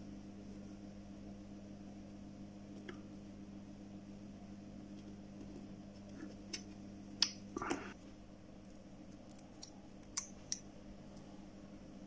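Small repair-bench handling noises over a steady low electrical hum: a short scrape a little past halfway and a handful of small sharp clicks in the second half, as copper desoldering wick and a soldering iron work the joints of a micro USB charging port on the phone's board.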